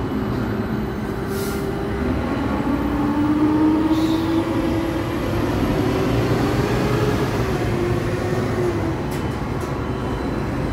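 Automated container crane on the move: a drawn-out electric drive whine that slowly rises and then falls in pitch over a steady mechanical rumble, with a few faint clicks.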